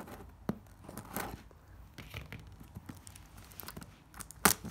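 Clear plastic shrink wrap being torn and crinkled off a box by hand: irregular crackling and rustling, with a sharp snap of the plastic near the end.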